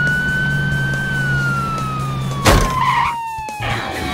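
Police siren wailing: one long tone that holds high, then slowly falls in pitch, over a low steady hum. A loud, sudden bang cuts in about two and a half seconds in.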